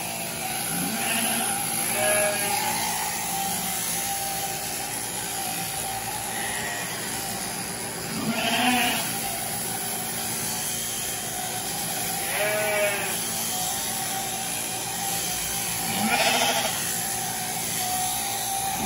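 Sheep bleating about five times, spaced a few seconds apart, over the steady hum of electric sheep-shearing clippers working through a fleece.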